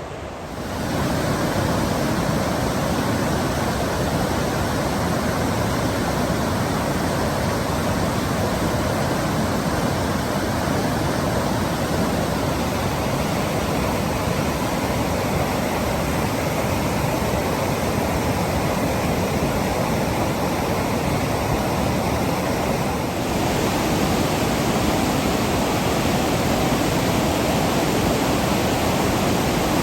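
Waterfall: a steady, loud rush of falling water. It swells within the first second and turns brighter about three-quarters of the way through.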